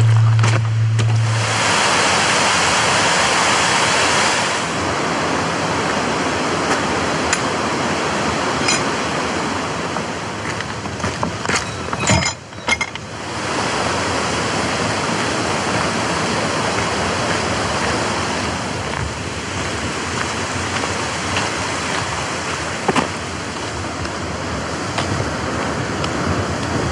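Steady rushing of a fell stream, with wind on the microphone. A low steady hum stops about a second and a half in, and the rushing breaks off briefly about twelve seconds in.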